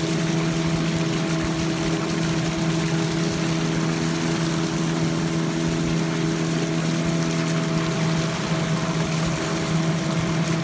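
Motor of a wooden river longboat running steadily at speed, an even hum with water rushing along the hull.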